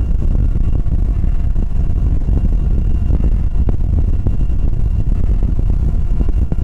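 Hurricane 2486 deck boat running underway: a steady low rumble of engine, water and wind noise.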